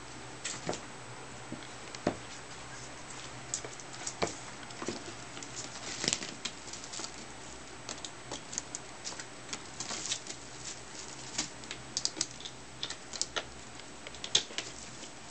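A ferret rummaging among cardboard record sleeves in a plastic crate: irregular sharp clicks, taps and scuffs from its claws and the shifting sleeves.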